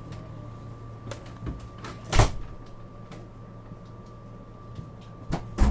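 Inside a regional rail passenger car: a steady low hum with a faint high whine, broken by sharp knocks and thumps, the loudest about two seconds in and two more near the end.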